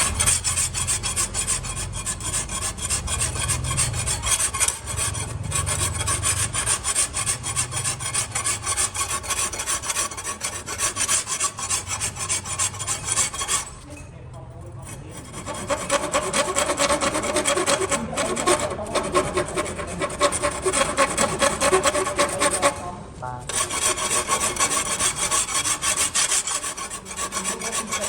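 Metal being filed by hand: rapid rasping strokes of a file on a steel hoe blade, with a short pause about halfway through and another brief one near the end.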